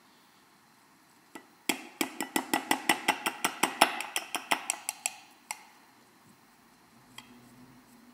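Metal tablespoon clinking rapidly against a drinking glass, about five sharp clinks a second for nearly four seconds, after a single clink about a second in.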